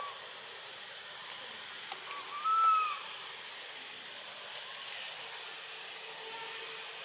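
Outdoor forest ambience: a steady hiss with a thin, constant high-pitched whine. About two and a half seconds in comes one short call that rises and falls in pitch, the loudest sound here.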